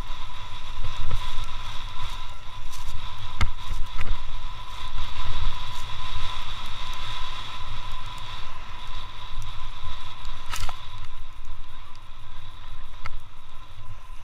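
Wooden sled sliding fast over packed snow: a steady hiss from the runners over a low rumble, with a few sharp knocks from bumps in the track.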